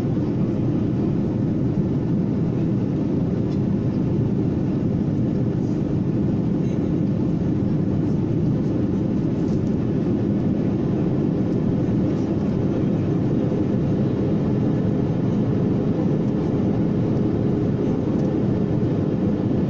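Airliner cabin noise: the steady, even rumble of the jet engines and airflow heard from inside the passenger cabin, with a faint steady hum.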